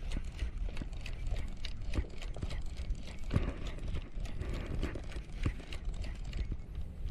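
Wind rumbling on the microphone over irregular knocks and taps on an inflatable boat rocking in choppy water.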